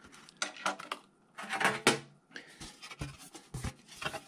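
Hands handling a MacBook Air's aluminium bottom cover and small tools on a desk: scrapes, light knocks and clatter, loudest about one and a half to two seconds in, with a few dull knocks near the end.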